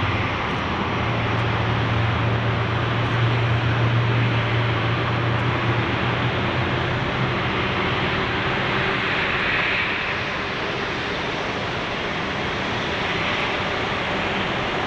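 The GEnx jet engines of a Boeing 747-8 running, a steady rushing noise. A low hum underneath fades out about halfway through.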